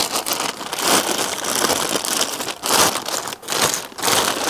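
Plastic packaging film crinkling and rustling in irregular handfuls as the parts are unwrapped and pulled out by hand.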